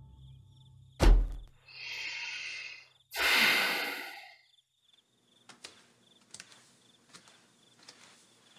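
A door shuts with a heavy thump about a second in. Two long, breathy sighs follow, the second one louder, then faint scattered clicks.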